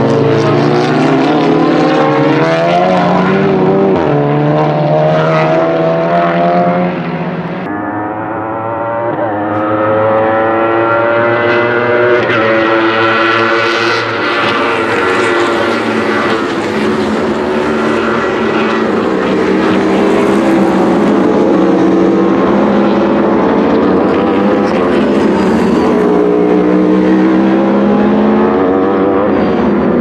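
Racing car engines at full race pace. For the first several seconds a GT car and a touring car accelerate out of a corner. After a sudden cut, Aprilia-engined Wolf GB08 sport prototypes take over, their high engine notes rising repeatedly and dropping at each upshift as they pass.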